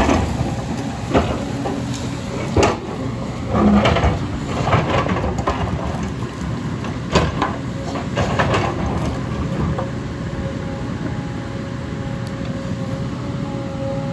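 JCB tracked excavator's diesel engine running under load as its bucket digs through landslide rock and soil, with knocks and scrapes of rock against the bucket through the first half. A steady high whine joins from about ten seconds in.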